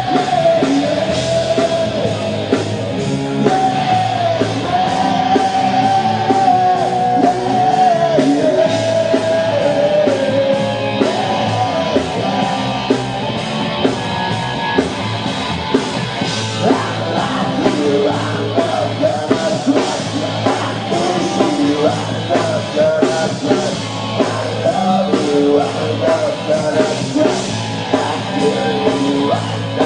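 Rock band playing live: a singer's voice carries the melody over a steady drum beat and the full band.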